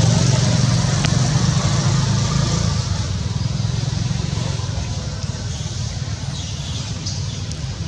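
A steady, low engine hum, slowly fading.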